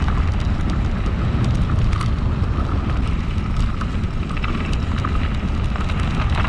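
A mountain bike being ridden over a snowy forest track: tyre roll and wind on the microphone make a steady low rumble, with scattered light clicks and rattles from the bike.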